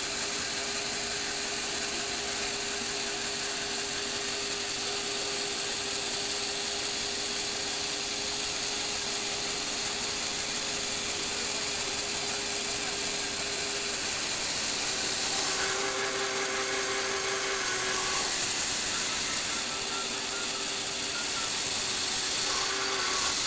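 Motor-driven Lego Technic gear train and turntable running steadily as it slowly rotates and tilts a model car, a continuous whirring gear chatter. The motor's tone shifts for a couple of seconds past the middle and again near the end.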